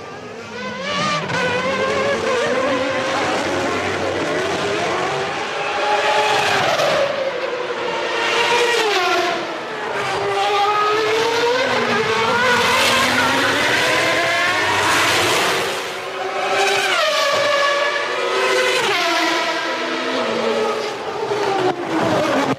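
Naturally aspirated Formula One race cars of 1993 at racing speed. Several engines overlap, their notes falling and rising in pitch again and again through braking and gear changes as the cars go by. The sound briefly eases about ten and sixteen seconds in.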